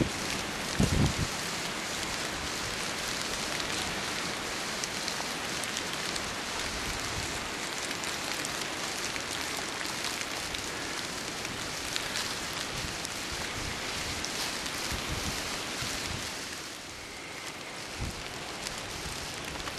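Steady rain falling, an even hiss that eases slightly near the end.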